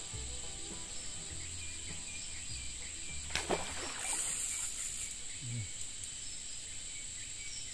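Steady high-pitched insect drone with a few faint bird chirps; a single sharp knock about three and a half seconds in and a brief hiss about a second later.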